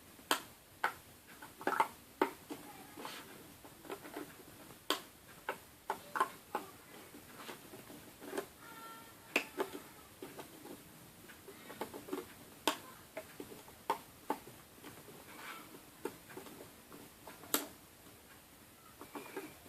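Irregular light clicks and taps of a loom hook and rubber bands against the plastic pins of a Wonder Loom, as bands are hooked forward pin by pin, roughly one click a second.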